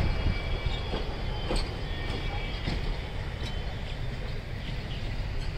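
Ooty toy train of the Nilgiri Mountain Railway running on the rails: a steady low rumble with scattered wheel clicks and a faint, thin, high wheel squeal now and then.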